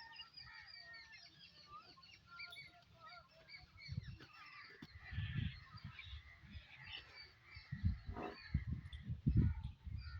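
Many small birds chirping together in a constant, busy twitter, with irregular low rumbles coming in from about halfway through.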